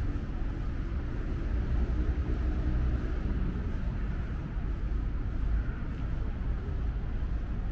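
Steady low rumble of road traffic around a city square, with no single vehicle standing out.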